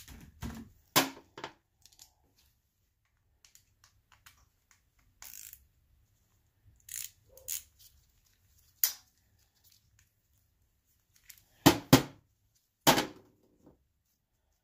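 Irregular clinks and knocks of metal parts and tools being handled at the front of a small-block Chevrolet 350 engine block, loudest in a cluster near the end.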